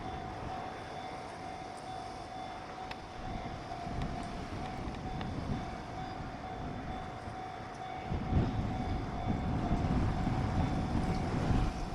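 Level-crossing alarm ringing with a steady high tone over the low rumble of an approaching freight train, which swells about four seconds in and grows louder again about eight seconds in.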